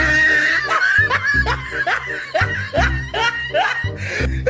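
Music with a pulsing bass beat, with a laughing voice repeating over it in short rising bursts.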